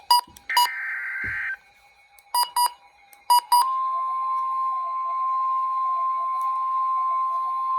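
Weather radio sounding a tornado warning alert: a few short electronic beeps and a one-second burst of buzzing EAS data tones, then, about three and a half seconds in, the steady 1050 Hz NOAA Weather Radio warning tone begins and holds.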